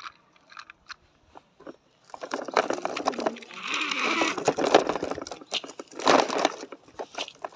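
Plastic toy truck's wheels rolling over gritty dirt and small stones as it is pushed by hand, a loud grainy scraping full of quick clicks that starts about two seconds in and dies away near the end. A few light clicks come before it.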